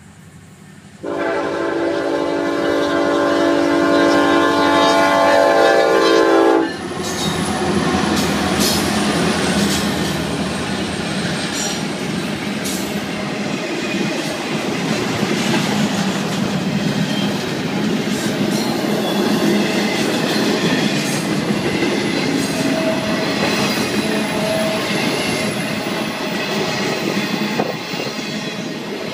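Freight locomotive air horn sounding one long chord of about six seconds as the train reaches the crossing. It cuts off and the intermodal freight train rolls past: steady wheel noise with clicking over the rail joints and occasional thin wheel squeals.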